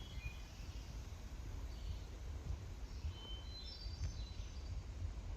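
Songbirds singing in the woods with short, high whistled phrases, including a run of stepped notes about three to four seconds in, over a steady low rumble.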